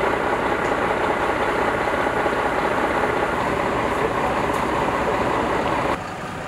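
Fire engine's diesel engine idling steadily, loud and close. The sound drops suddenly about six seconds in.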